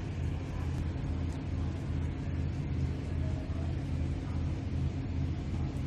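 Rotisserie oven running with a steady low hum.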